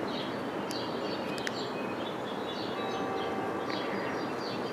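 Steady background hiss, with a couple of faint clicks from metal knitting needles being worked and faint high chirps now and then.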